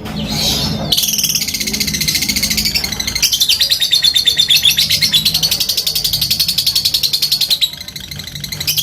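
Lovebird's long 'ngekek': a rapid, unbroken chattering trill of high clicking notes, the drawn-out call keepers prize in a fighter bird. It starts about a second in, breaks off briefly near the end and starts again, over a low steady hum.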